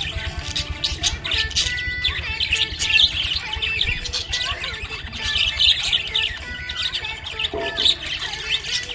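Several budgerigars chirping and chattering without a break, many quick overlapping calls.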